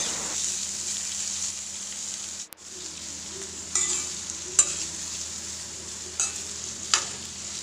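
Chopped amla (Indian gooseberry) sizzling in hot sesame oil in a kadai while a metal ladle stirs it, with a few sharp clicks of the ladle against the pan in the second half.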